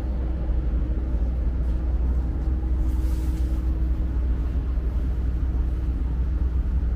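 Steady low hum and rumble with one constant tone, as from the refrigerated vending machines running in a cramped corner.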